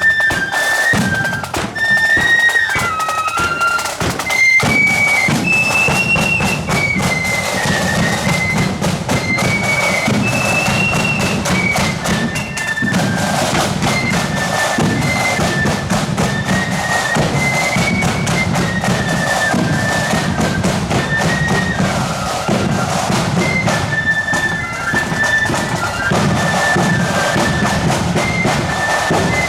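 Marching flute band playing a tune: flutes carry a high melody over snare drums and a steady bass drum beat.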